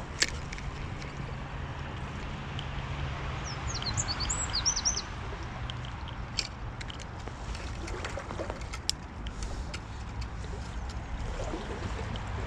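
A small stream runs under a steady low rumble and hiss. A bird chirps in a short quick run about four seconds in, and a few sharp clicks come through.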